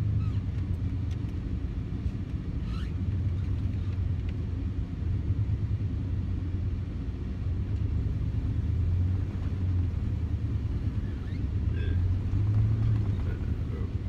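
Lifted four-wheel-drive pickup truck's engine running steadily as it drives through deep, unplowed snow, heard from inside the cab as a low rumble. A few faint clicks are heard over it.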